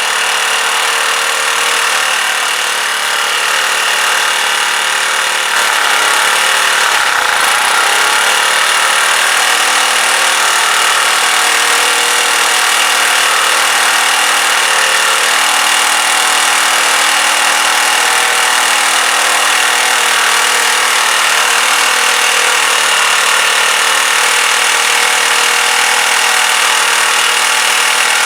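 Small petrol engine of a Clarke pressure washer running steadily on choke, getting louder about five seconds in, its revs sagging and picking up again a couple of seconds later. It will only run on choke, a sign that the carburettor needs more work.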